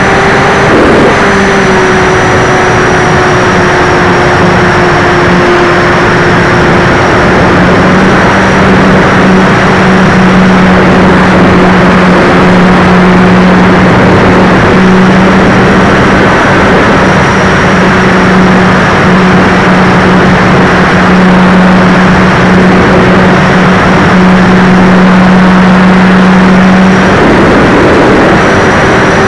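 RC model Cessna 400 Corvallis in flight, heard from a camera on its tail: the motor and propeller give a steady hum over loud wind rush on the microphone. The hum grows stronger partway through and drops back near the end, as the throttle changes.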